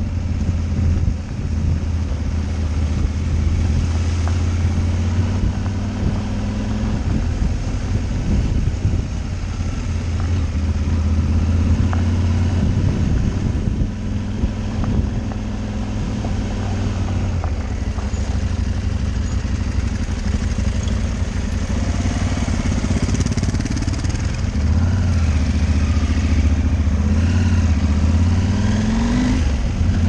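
Off-road motorcycle engine running under way, its note stepping up and down with throttle and gear changes, with a rising rev near the end.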